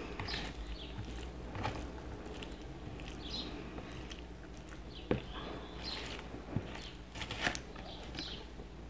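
Close-miked eating sounds: a plastic spoon scraping and scooping through rice, stew and fries on a plate, with a few sharp clicks and some chewing, over a low steady hum.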